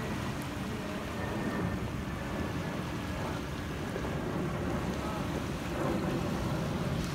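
Wind buffeting the microphone, with small waves washing at the shoreline: a steady rushing noise, heavy in the low end.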